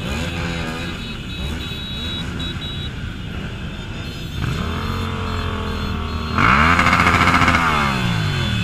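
Motorcycle engines idling in a slow-moving pack, with riders blipping their throttles: the engine note rises and falls several times, the loudest rev about six and a half seconds in, lasting more than a second.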